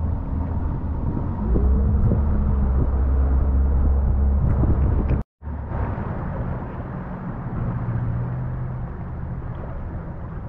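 Pontoon boat's outboard motor running as the boat cruises, a steady low rumble. It grows louder about a second and a half in, cuts out for a moment about five seconds in, then carries on steadier and quieter.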